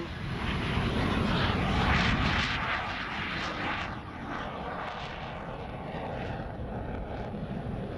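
Jet noise from a U.S. Navy T-45 Goshawk trainer's turbofan in flight: a steady rushing roar that swells about two seconds in, then eases to an even level.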